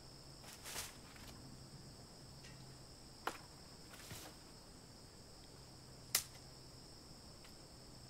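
Faint, steady, high-pitched chorus of insects trilling, with a low steady hum under it. Three short sharp clicks break in, the loudest a little past the middle.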